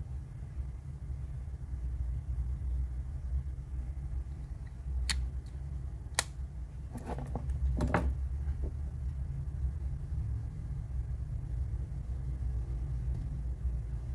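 A steady low rumble, with a few sharp clicks and taps about five to eight seconds in as a plastic AirPod and its charging case are handled and set down on a silicone work mat.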